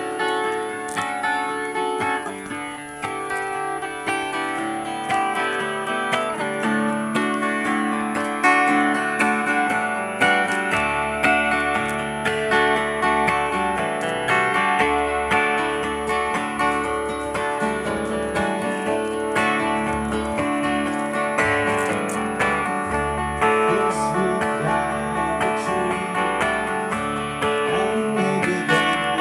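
Acoustic guitars being strummed and picked in a small live band, with low bass notes coming in about eleven seconds in.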